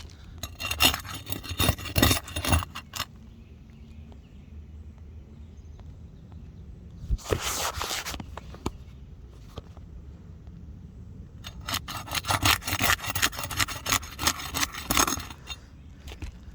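Gritty scraping and rubbing against asphalt roof shingles as they are worked loose and handled during a shingle repair. It comes in three spells: briefly at the start, again in the middle, and longest near the end.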